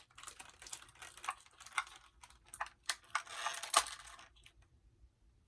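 Small plastic doll accessories and their packaging being handled: a run of sharp plastic clicks, then a crinkling rustle of plastic wrapping about three seconds in with one loud click inside it.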